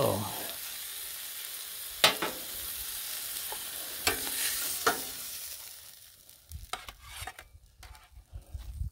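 Tri-tip steak sizzling steadily on a hot Blackstone steel griddle, with a few sharp clicks of a metal spatula against the plate. The sizzle fades out about six seconds in as the steak is lifted off, leaving a few faint knocks.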